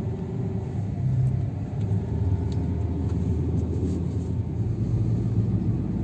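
Steady rumble of a car driving, engine and road noise heard from inside the cabin.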